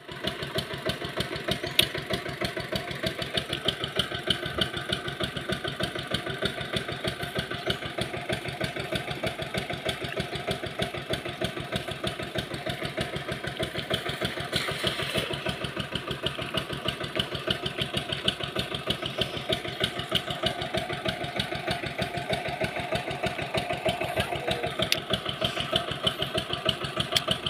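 An engine runs steadily throughout with an even, rapid pulsing beat. A brief splash about halfway through as a cast net lands on the water.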